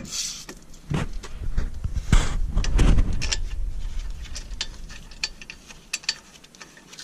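Short metallic clicks and knocks as a brake caliper is fitted and its two mounting bolts are lined up and started by hand, with heavier knocks about one to three seconds in and lighter ticks after.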